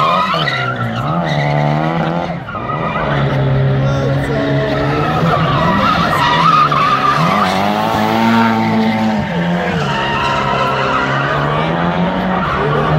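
Drift car engine revving hard, its pitch rising and falling over and over with the throttle, with tyres skidding and squealing on the pavement.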